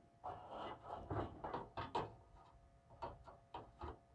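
Light clicks and rattles of hardware being handled against a computer case, busiest in the first two seconds, with a few sharper clicks near the end.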